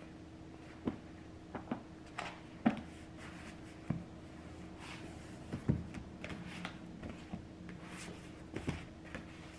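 Paperback books handled on a wooden table: pages turned and riffled, fingertips tapping and sliding on the covers, and books set down on a stack, giving a scattering of soft taps and brief page rustles.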